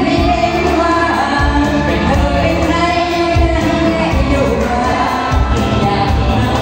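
Women singing into handheld microphones over amplified pop backing music with a steady bass beat.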